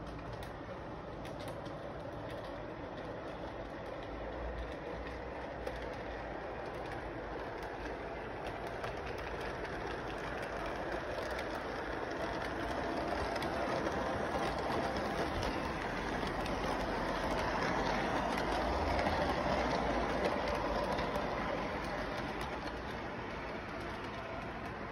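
Electric model train rolling along its track, growing louder to a peak a little past the middle as it passes, then easing off.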